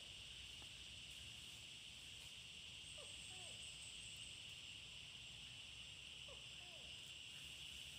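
Forest ambience: a steady high insect drone, with a short call of two or three quick notes from a bird, heard twice about three seconds apart.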